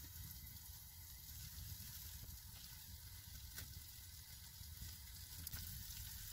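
Faint, steady hiss and sizzle of a cheese-topped sandwich cooking under a gas grill's flames as the cheese melts, with a couple of faint crackles.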